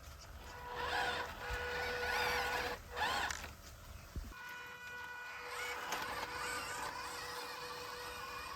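Small electric motor of a 1/24-scale RC crawler whining at a steady pitch, with stretches of hissy noise in the first few seconds.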